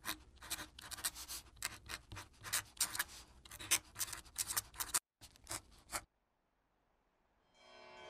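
Pen scratching across paper in quick, irregular strokes as a word is written out, stopping about six seconds in. Near the end, church bells begin to fade in.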